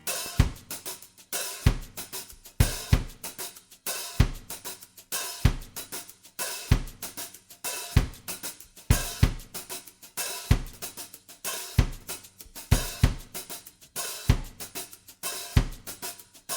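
Background music: a solo drum kit pattern with bass drum, snare and hi-hat/cymbal strokes in a steady beat.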